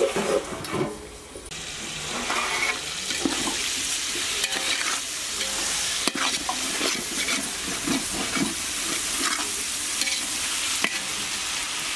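Chicken and masala sizzling in a large aluminium pot while a metal spatula stirs and scrapes against the pot, with scattered short metallic clicks.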